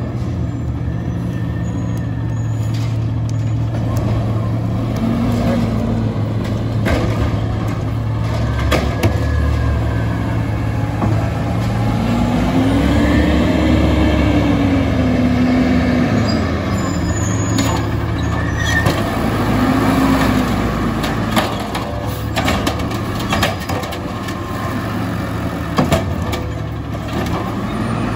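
Natural-gas Peterbilt automated side-loader garbage truck running with a deep steady drone. Its engine revs up and falls back several times, with short hisses of air.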